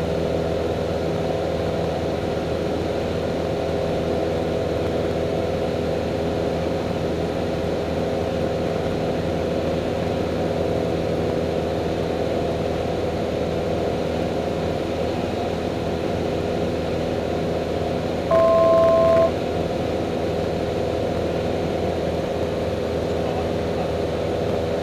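Single-engine light aircraft's piston engine and propeller running steadily in cruise, heard inside the cockpit as an even drone. About three quarters of the way through, a two-note electronic beep sounds once for about a second, louder than the drone.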